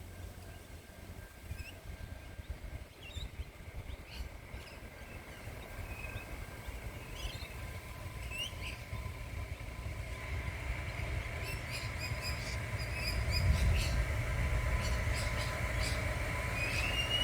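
A train approaching, its low rumble and a steady high ringing from the rails growing louder over the last ten seconds, the high tone rising in pitch near the end. Birds chirp now and then, mostly in the first half.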